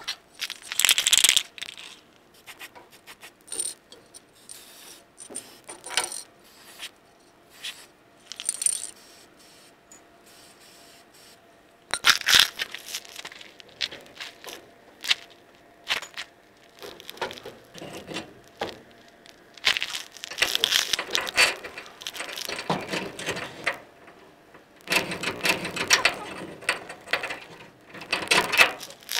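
Metal hand tools and hardware clinking, scraping and rattling in irregular bursts, with sharp knocks between them.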